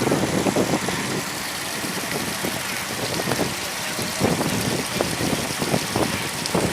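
Engine of a canal boat running steadily, with short irregular surges of noise over it.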